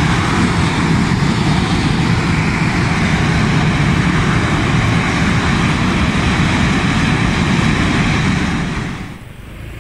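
Geothermal well under a drilling rig venting gas and smoke with a loud, steady rushing noise: a gas leak from the well. The noise drops away about nine seconds in.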